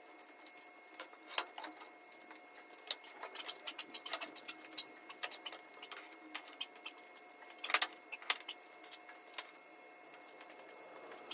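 Light, irregular clicks and knocks of wooden boards being handled, set down and slid into place on a tabletop, with a few louder knocks. A faint steady hum runs underneath.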